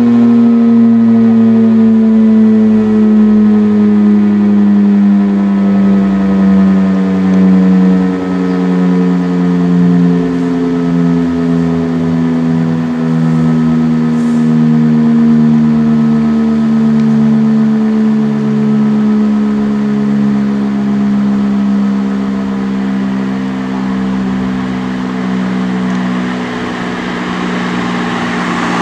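Old World War II-era civil defence siren winding down at the end of its fire-alarm test signal. Its loud chord of tones slowly falls in pitch and fades.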